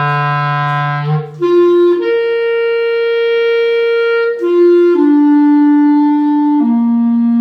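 Clarinet playing a slow series of sustained single notes. A low note ends a little after a second in, followed by a brief break. The later notes include one long held note in the middle, and the line steps down in pitch over the last notes.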